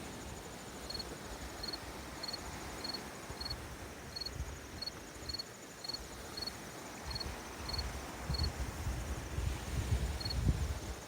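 A cricket chirping steadily, about one and a half short, high chirps a second, with a brief pause near the end. A fainter, higher insect trill sounds behind it, over a low rumble that grows louder in the second half.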